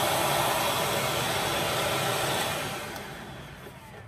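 Small wet/dry shop vacuum running with a loud rushing of air, then switched off about two and a half seconds in, its motor winding down with a faint falling whine.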